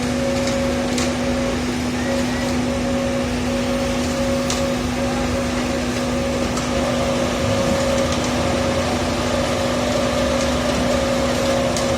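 Diesel engine of a mobile concrete mixer pump running steadily, with an even hum and a few faint ticks.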